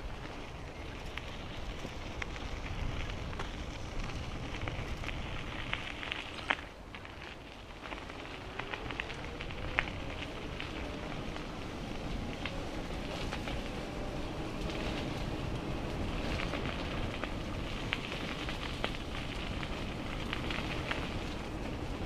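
Bicycle ride heard from the bike-mounted camera: a steady rush of wind and rolling tyres, with frequent irregular clicks and crackles from the path and the bike. The noise drops for a moment about six and a half seconds in.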